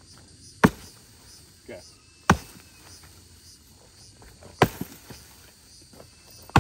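Three sharp chopping strokes of a blade, spaced about two seconds apart, with a fainter knock between the first two. Insects chirr steadily in the background.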